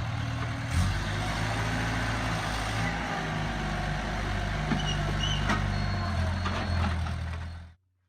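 Heavy diesel vehicle or machine engine running steadily, with a few knocks and clanks over it, cutting off abruptly near the end.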